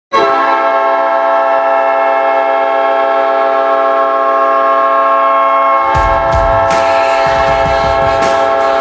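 NHL arena goal horn blasting a loud, steady chord of many held notes. About six seconds in, the goal song comes in under it with a pounding drum beat while the horn keeps sounding.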